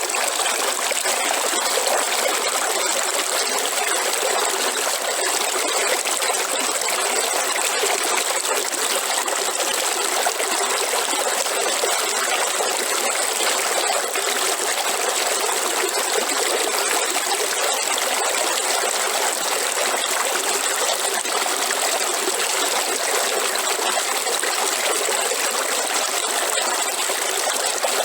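River water flowing, a steady, even rush with no change in level.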